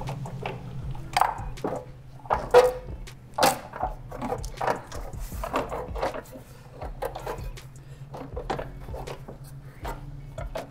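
Hard plastic air-intake parts knocking and clicking irregularly as they are handled and fitted in a car's engine bay, the loudest knocks about two and a half and three and a half seconds in, over a steady low hum.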